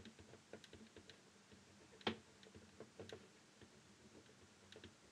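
Four-colour ballpoint pen lettering block capitals on paper: faint, irregular taps and scratches as the tip touches down stroke by stroke, with one sharper tap about two seconds in.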